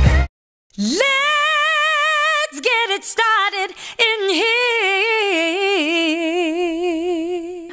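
A solo female voice singing unaccompanied with heavy vibrato: a note swooping up and held, a few short notes, then a long lower note that sinks slightly and fades out near the end.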